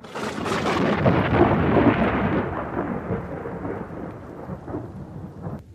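Thunder sound effect: a sudden crack that swells into a long rumble and slowly dies away over about five seconds, heralding an approaching rainstorm.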